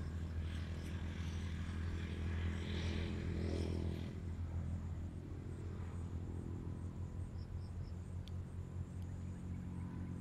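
A steady low engine drone, a motor running without change.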